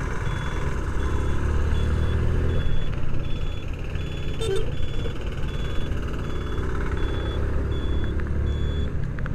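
Motorcycle running steadily on the move, a low engine rumble with road and wind noise. A faint high beep repeats evenly, a little under twice a second, throughout.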